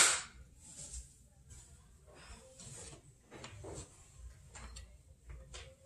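One loud, sharp knock or clatter right at the start, then faint scattered clicks and knocks of household movement.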